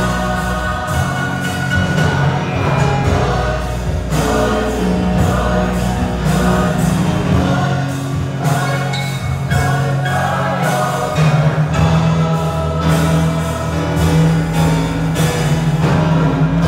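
Large church choir of men and women singing a hymn together in sustained chords, with strong low voices underneath.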